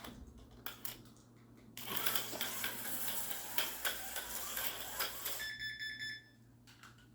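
An HO-scale slot car (Porsche 962) clatters and buzzes at speed around the plastic track for a few seconds. Then an electronic lap counter gives one short buzzy beep as the lap is timed.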